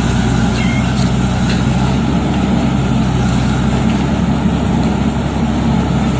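Heavy diesel engine running steadily at an even, low note, with a few faint ticks over it.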